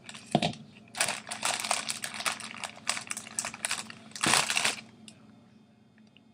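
Kitchen handling noises while fruit salad is prepared: a busy run of quick clicks, rattles and crinkling, loudest about four seconds in, dying away after about five seconds.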